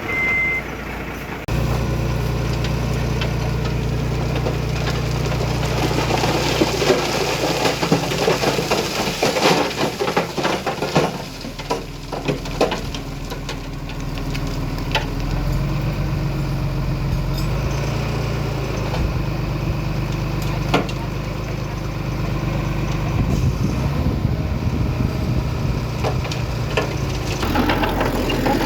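Heavy earthmoving machinery's diesel engine running, getting louder about a second and a half in, with a stretch of clattering and sharp knocks in the middle. A reversing beep ends right at the start.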